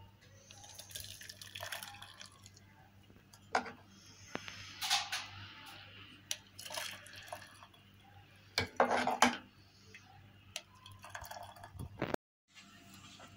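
Hot milk tea poured from a pan through a steel mesh strainer into a glass teapot, splashing and trickling in uneven bursts, loudest a little past the middle. A few sharp knocks, from the pan or strainer against the glass, fall between the pours.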